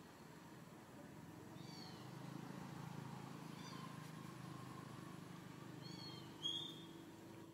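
Faint, short, high-pitched animal squeaks, four of them, each falling slightly in pitch, with the loudest about six and a half seconds in, over a faint low hum.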